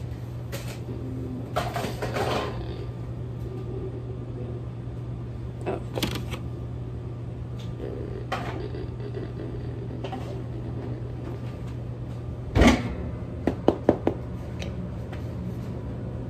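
A metal baking tray and an oven door are handled with oven mitts: scattered knocks and clatters over a steady low hum. The loudest is a single bang about three-quarters of the way through, followed quickly by a few sharp clicks.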